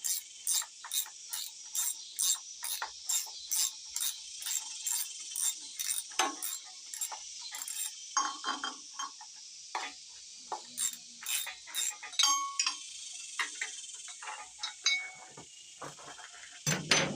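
Hand ratchet clicking steadily, about three clicks a second, as a bolt is backed out of a small-block engine; about halfway through the rhythm breaks into scattered clicks and clinks of tools on metal.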